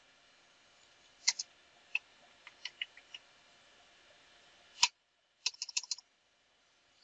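Computer keyboard keystrokes: scattered single key clicks as a short command is typed, with one louder keystroke about five seconds in. A quick run of several key presses follows it.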